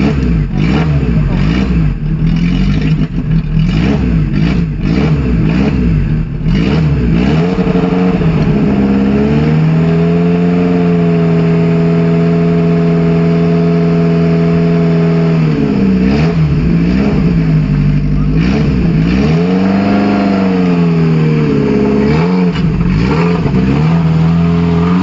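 Off-road vehicle's engine revving hard, its pitch rising and falling again and again, then held high and steady for about six seconds from about ten seconds in, before rising and falling again. Sharp knocks and clatter come through in the first seven seconds.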